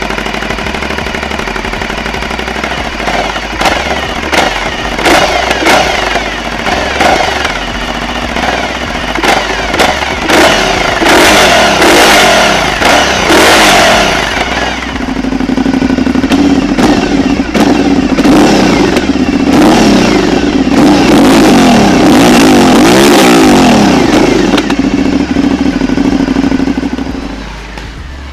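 Aprilia Shiver 900's V-twin engine on its stock exhaust, revving hard with sharp pops and crackles in the first half. Later it holds high revs that rise and fall repeatedly, then drops away near the end.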